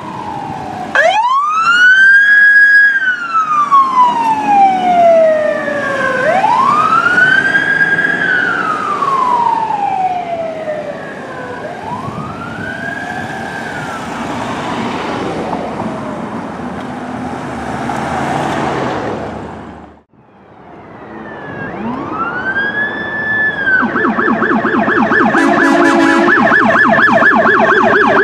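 Fire department medic squad's electronic siren sounding a wail, rising and falling slowly about every five to six seconds over road and engine noise. After a brief drop-out it rises once more, then switches to a fast, rapidly pulsing warble near the end.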